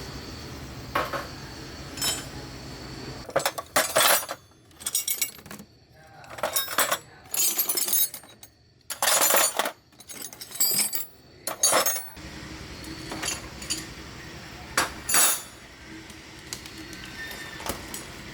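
Metal tools and engine parts clinking and scraping in a series of sharp strikes, over a low steady hum that drops out for the middle of the stretch.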